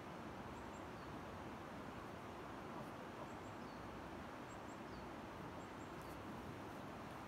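Steady outdoor background hiss, with faint, short, high bird chirps repeating every second or so.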